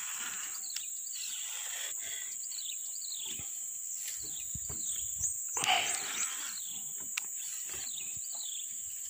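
Swamp ambience: a steady high-pitched insect drone with bird chirps scattered through it, and a brief louder sound a little past halfway.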